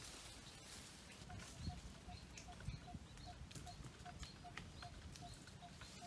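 A bird calling one short, even note over and over, about two and a half notes a second, starting about a second in. Beneath it, faint rustling and small snaps of leaves and twigs being handled.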